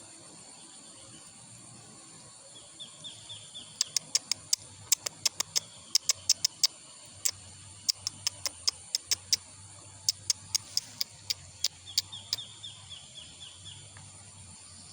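A run of sharp, irregularly spaced clicks, several a second, beginning about four seconds in and stopping near the end. Just before them, and again after them, comes a brief series of soft, rapid ticks.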